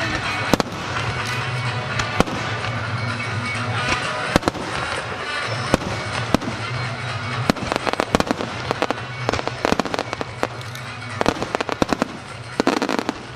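Aerial fireworks shells bursting: a string of sharp reports and crackles, coming thicker and faster in the second half.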